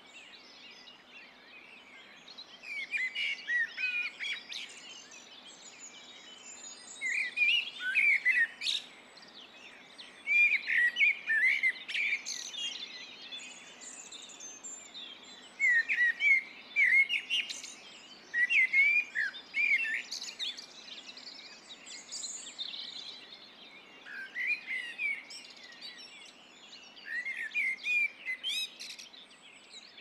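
Songbirds singing: short phrases of quick chirps and warbles, each one to two seconds long, coming again every few seconds, over a faint steady low hum.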